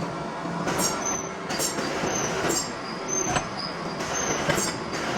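Metalworking machinery running in a machine shop: dense mechanical noise with short, high metallic squeals and knocks that recur every second or so.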